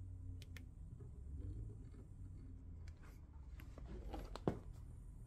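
Faint steady low hum with scattered small clicks and knocks, the sharpest click about four and a half seconds in. The repaired active subwoofer is giving no sound output.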